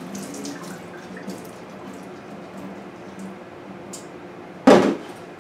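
Water dripping and trickling from a colander of freshly rinsed, drained potatoes over a kitchen sink, over a faint steady hum. One sharp knock near the end.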